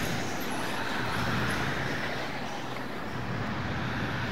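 Steady vehicle and road-traffic noise, a continuous rushing hum with no distinct events.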